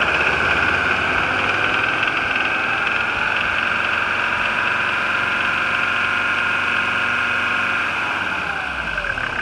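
1981 Mercedes-Benz 300SD's OM617 five-cylinder turbo diesel held at raised revs, running steadily with a high-pitched whine over the diesel clatter. About eight seconds in, the revs fall back toward idle.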